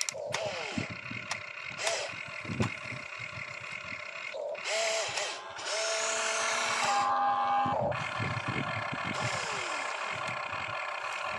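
Radio-controlled excavator's small electric motors whining as the boom, arm and swing move, the pitch gliding up and down as the movements start and stop, with louder hissing stretches around the middle.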